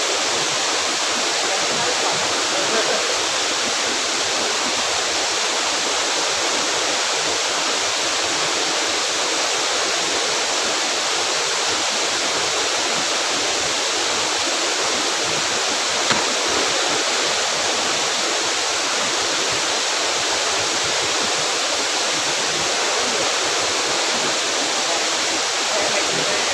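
Waterfall rushing with a loud, steady roar of falling water.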